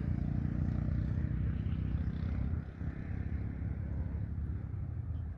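Steady low rumble of a vehicle engine, with a faint hiss of outdoor air over it.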